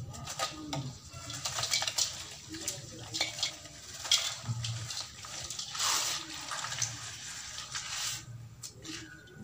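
Hands breaking and crumbling a gritty sand-cement block into a shallow bowl of water: irregular crunching and crackling with small splashes, turning to wet squelching as the sandy paste is squeezed between the fingers near the end.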